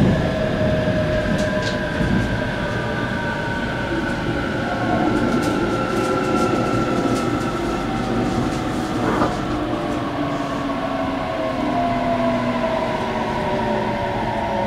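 Running noise inside the cabin of a JR Kyushu 817 series 3000 electric train: a steady rumble of wheels on rails with a few clicks, under a motor whine that slides slowly down in pitch as the train slows for a station.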